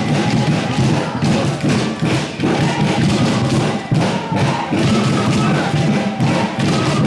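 Music with many irregular thumps and knocks.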